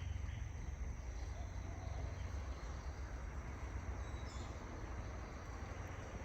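Outdoor jungle ambience: a steady low rumble of wind on the microphone, with faint high insect chirring.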